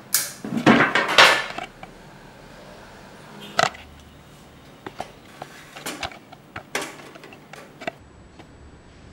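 Metal parts of a two-burner grill being handled, clattering and clinking: a loud run of clatter in the first two seconds, then scattered single knocks and clinks.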